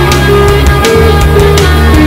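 Heavy rock music from a one-man band: held guitar and bass notes changing every half second or so, over a drum kit with regular strikes.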